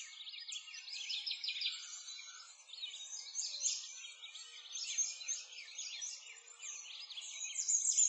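Dense chorus of many small birds chirping and twittering, quick overlapping high calls with nothing low beneath them.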